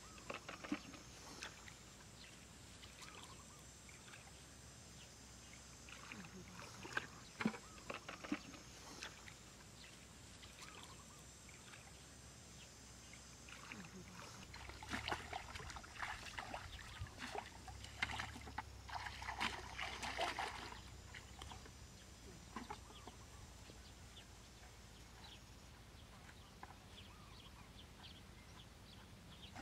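Muddy water splashing and sloshing as someone wades through a shallow ditch and scoops and pours water with a bucket, in scattered splashes that grow busiest about halfway through.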